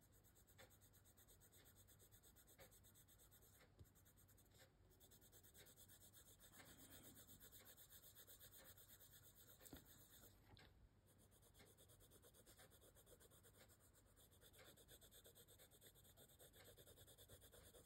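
Faint scratching of a soft-core coloured pencil (Prismacolor Premier Deco Pink) shading on paper in runs of short, quick back-and-forth strokes, with a few light ticks as the lead touches down.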